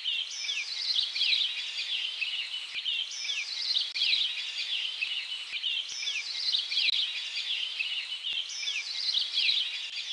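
Many small birds chirping in a busy, high-pitched chorus. The same stretch of song repeats about every three seconds, as a loop.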